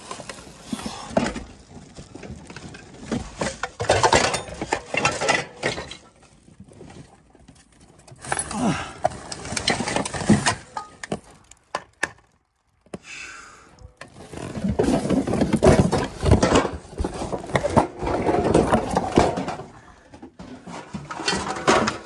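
Rummaging through piles of junk by hand: irregular rustling and clattering of handled objects, with a short break about halfway through.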